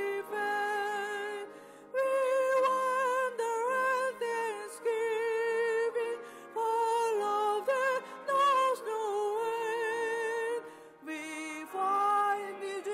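A small congregation singing a hymn to keyboard accompaniment, the melody moving in long held notes with vibrato.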